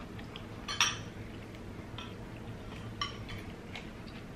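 Metal spoon clinking against a ceramic soup bowl: a few short clinks, the loudest just under a second in and another about three seconds in.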